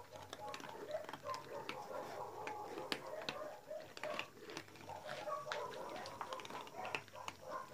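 A group of cats crunching dry kibble from a shared bowl: many quick, irregular crunches and clicks overlapping one another.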